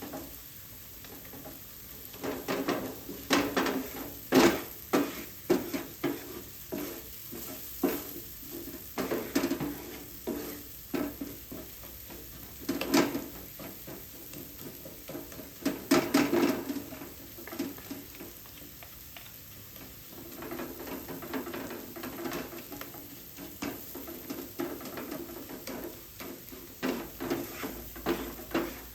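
Stirring food in a frying pan: a cooking utensil scrapes and knocks against the pan in many short strokes over a low sizzle. The second half has a steadier stretch of stirring and a few more knocks near the end.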